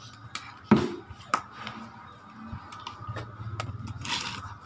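Sharp clicks and knocks from a CRT television being handled, the loudest about three-quarters of a second in and another half a second later, with smaller ticks between. A low hum runs underneath, and there is a brief rustle near the end.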